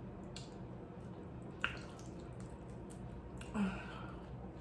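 Close-up wet chewing and squishy mouth sounds of someone eating loaded shrimp nachos, with a few sharp clicks. Near the end there is a brief "mm" hum.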